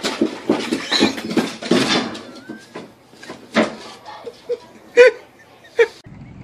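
A pug sliding and bumping down a flight of wooden stairs: a quick run of knocks against the steps for the first two and a half seconds. A few short high cries follow, the loudest about five seconds in.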